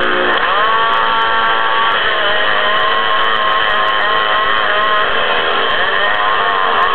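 Two-stroke chainsaw engine revving up sharply and running at high speed, its pitch holding fairly steady and then wavering up and down near the end.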